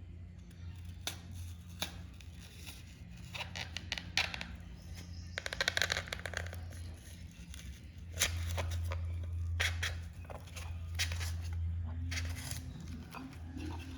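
Craft-making handling sounds: scattered clicks, scrapes and snips of materials being cut and handled, with a rapid run of clicks about six seconds in, over a steady low hum.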